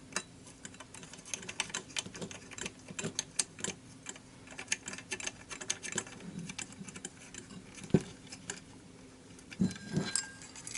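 Irregular small clicks and light scraping of the retaining nut being threaded by hand onto a pull-chain light switch, and of the switch's parts tapping against the light fixture housing. There is a sharper knock about eight seconds in.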